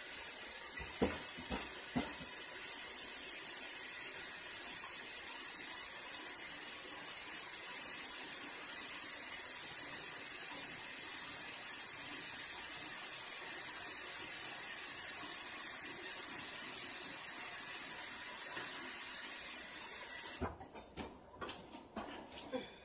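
Kitchen faucet running water into the sink with a steady hiss, shut off about 20 seconds in, followed by a few light knocks and clinks.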